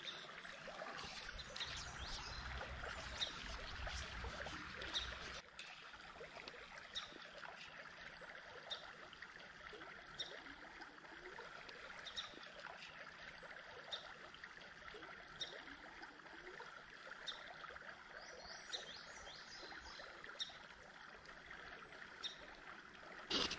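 Faint, steady sound of creek water flowing, with small high ticks scattered every second or two.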